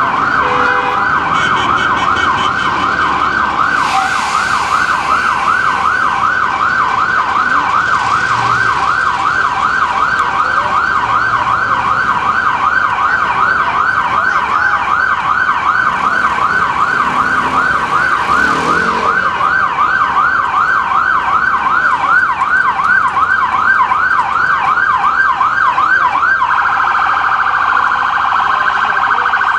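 Ambulance electronic siren on yelp, a rapid rise and fall about twice a second, changing to a faster, choppier warble near the end.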